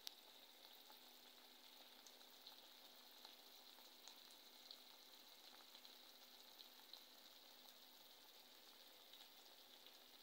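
Faint sizzling from an Afghani omelet (eggs cooked over potatoes, tomato and onion) in a wok, a quiet steady hiss with scattered small crackles. A small click right at the start.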